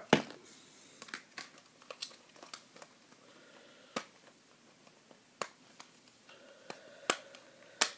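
Sharp clicks and taps of hard plastic toy parts being handled, about ten scattered irregularly through the stretch, the loudest one right at the start.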